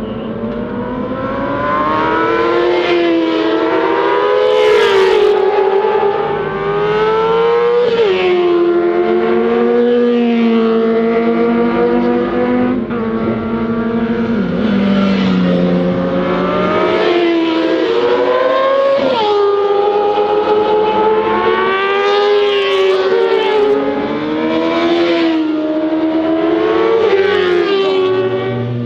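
Sport motorcycles on a race track, their engines revving hard past a corner. Several bikes overlap, each engine note climbing and then dropping sharply at a gear change, over and over.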